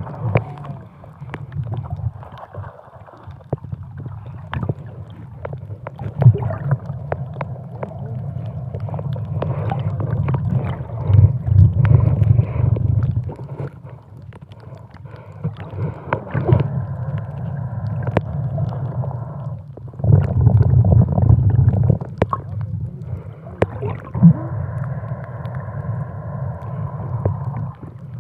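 Muffled underwater sound picked up by a submerged camera: a low gurgling rumble of moving water and bubbles that swells in surges, with scattered small clicks.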